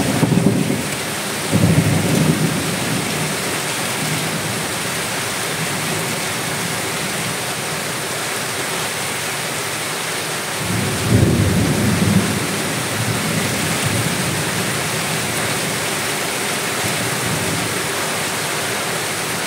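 Steady rain pouring down, with low rolls of thunder near the start and again about eleven seconds in.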